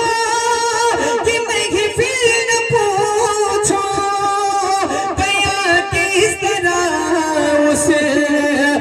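A man singing a naat into a microphone, drawing out long, wavering melismatic notes without clear words, the melody stepping down in pitch over the phrase.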